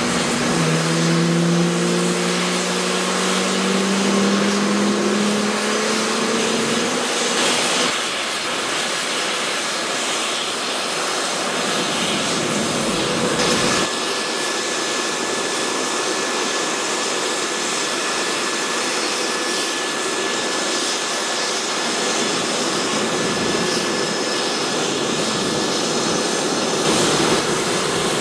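JAS-39 Gripen's Volvo RM12 turbofan running on the ground. A low hum rises slowly in pitch over the first several seconds, then the engine settles into a steady jet rush with a thin high whistle.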